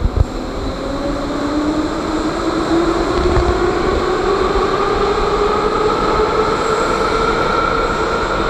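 An Ezh-type (E-series) Moscow Metro train pulling out of the station. Its traction motors whine and rise steadily in pitch as it accelerates, over the rumble of the wheels on the rails.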